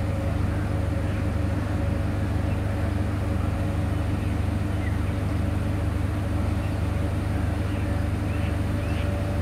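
Diesel train idling: a steady low engine drone with a constant hum above it, unchanging throughout.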